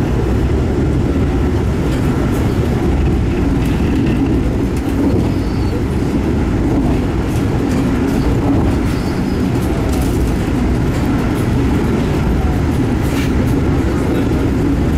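Steady low rumble of a moving Amtrak passenger train heard from inside the coach, with a few faint clicks.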